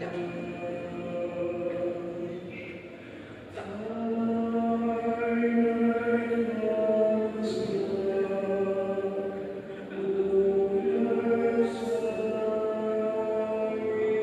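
Choir singing a slow chant: several voices holding long notes together as chords that change every few seconds.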